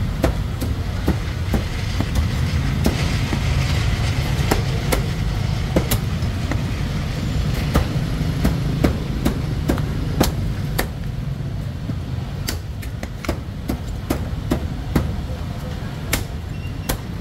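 Chopping on a cutting board: sharp, irregular knocks about one or two a second, over a steady low rumble.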